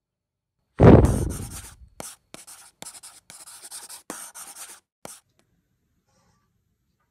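A loud deep hit about a second in that fades away over about a second, then a pen scratching on paper in a quick run of short strokes until about five seconds in: a handwriting sound effect.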